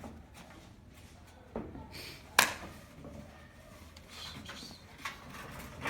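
A few scattered short clicks and knocks from small puppies at play, the sharpest about two and a half seconds in.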